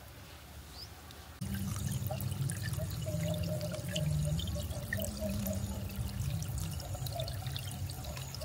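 Water pouring steadily with a low splashing rush, starting suddenly about a second and a half in.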